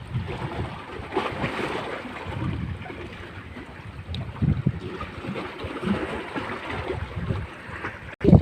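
Wind buffeting the microphone over the wash of sea water and waves, in irregular gusts with no steady engine tone.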